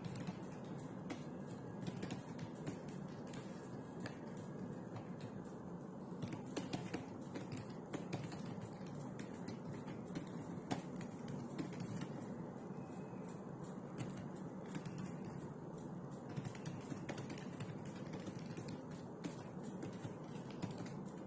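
Typing on a computer keyboard: irregular runs of light keystroke clicks over a steady low background hum.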